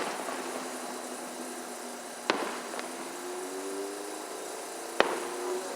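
Aerial fireworks bursting at a distance: two sharp bangs about two and a half seconds apart. Between them is a faint hum that slowly rises in pitch.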